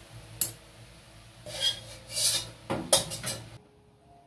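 Metal kitchen utensils scraping and clanking against a metal pot and pan on a gas stove: one sharp clink about half a second in, scraping after that, then a quick run of clanks near the end before the sound cuts off abruptly. Faint music notes follow.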